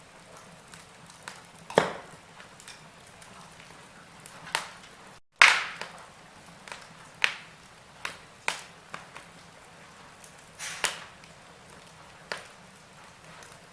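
Wood fire crackling in a fireplace: irregular sharp pops and snaps, the loudest about five and a half seconds in, over a faint steady low hum.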